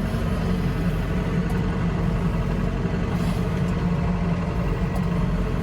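Diesel tractor engine running steadily at an even speed, a constant low drone.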